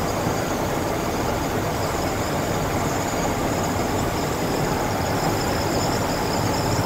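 Steady in-cab driving noise of a 1968 International Harvester 1100D pickup cruising at about 40 mph: its 345 V8 running under light load, mixed with road and tyre noise.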